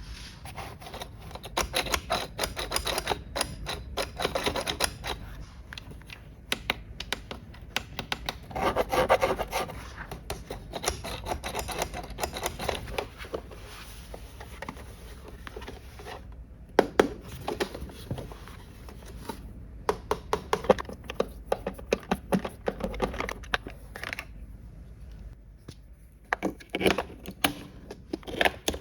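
Hands handling plastic toy cash register parts and packaging: stretches of rubbing and scraping broken up by many small clicks and taps.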